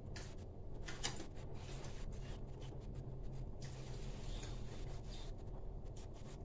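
Quiet chewing of petai (stink beans) with a few faint clicks, and fingers rubbing in the food on the plate, over a low steady hum.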